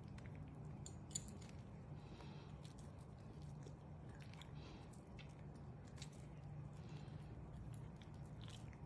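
Two metal forks flaking soft baked salmon: faint soft squishing of the flesh pulling apart and light ticks of the fork tines, with one sharper click about a second in, over a faint steady low hum.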